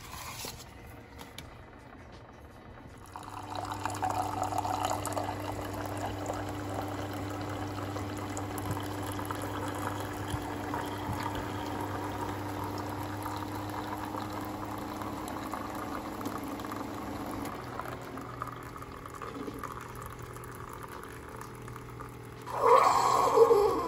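Keurig K-Latte single-serve coffee maker brewing a cup: from about three seconds in, a steady low pump hum runs with the stream of coffee filling the mug. Near the end there is a short, louder burst that falls in pitch.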